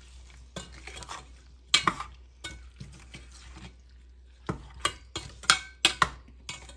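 Steel spoon stirring chopped amla (Indian gooseberry) pieces through oily pickle masala in a stainless steel pot, scraping and clinking against the pot's side several times, mostly in the second half.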